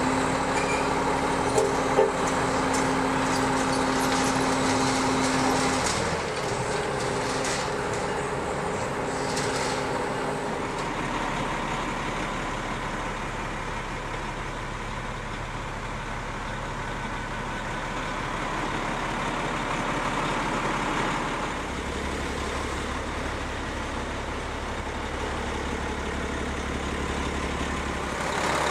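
Heavy diesel truck engine, the Cummins of a Volvo VHD roll-off truck, running steadily. A steady tone runs through the first several seconds, and the low hum changes abruptly a few times.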